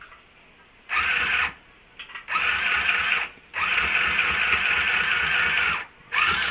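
Mini electric sewing machine running in starts and stops as its foot pedal is pressed and released: a short run about a second in, two brief blips, then longer runs with short pauses, each a steady motor whine.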